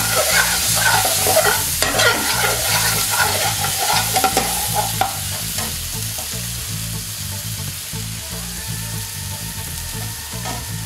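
Onions, tomato paste and spice powder sizzling in a small metal frying pan on a gas flame, with a metal spoon scraping and stirring around the pan for about the first five seconds. After that the frying sizzles on more quietly.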